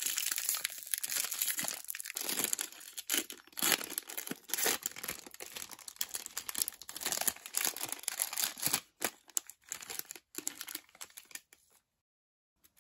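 Metallized plastic snack-cake wrapper being torn open and crinkled by hand: dense crackling that thins to scattered crackles after about nine seconds and stops just before the end.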